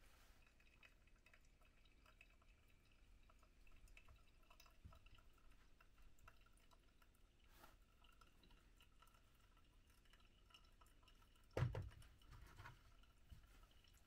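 Faint dripping of brewed coffee through a paper pour-over filter into a mug, as light scattered ticks. A single short knock a little before the end is the loudest sound.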